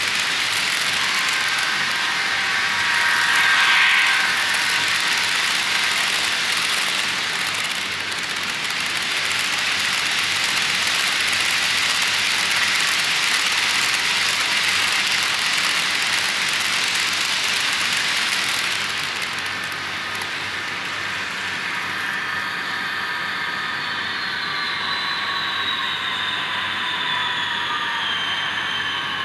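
HO scale model freight cars rolling past on sectional track, a steady close-up rattle of small metal wheels over rail joints and turnout, with a brief squeal a few seconds in. In the last third the rolling quietens and a whine falls steadily in pitch as the model locomotive slows down.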